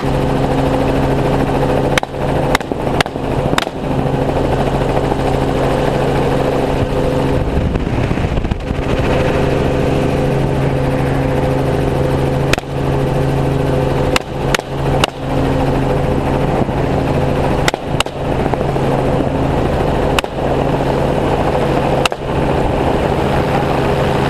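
Helicopter running steadily in flight, with about a dozen single rifle shots fired from it: several a half-second or so apart in the first few seconds, a cluster around the middle, and more spaced shots toward the end.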